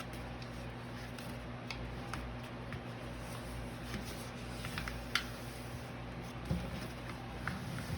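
Sheet of paper being folded and creased by hand, a few soft rustles and small ticks, with a sharper tick about five seconds in, over a steady low hum.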